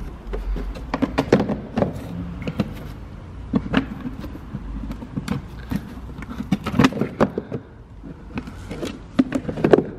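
Hard plastic cover being fitted back onto a Mercedes W211's pollen filter housing in the engine bay: irregular clicks, taps and knocks of plastic against plastic.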